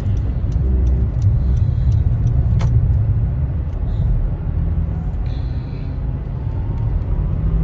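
Road and engine noise inside a moving car's cabin: a steady low rumble with a few faint clicks, and a faint tone slowly rising in pitch near the end.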